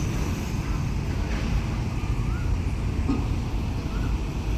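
Diesel engine of a heavy railway track-maintenance vehicle running steadily, with wind rumbling on the microphone.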